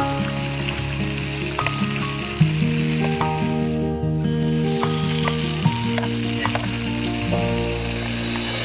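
Background music of slow, sustained chords over a steady crackling hiss.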